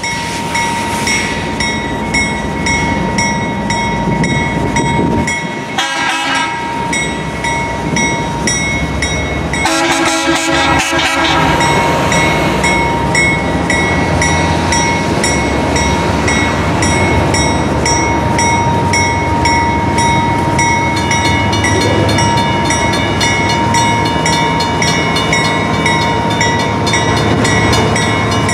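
CSX ES44DC diesel locomotive approaching slowly with its engine running and a bell ringing about twice a second; the horn sounds briefly about six seconds in and again for a longer blast around ten seconds in.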